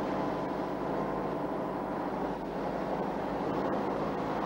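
Tatra truck's diesel engine running steadily as the truck drives along.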